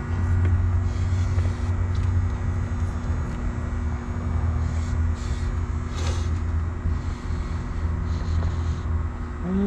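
Steady low rumble of engine and traffic noise with a constant mechanical hum, and a brief drawn-out vocal 'ooh' right at the end.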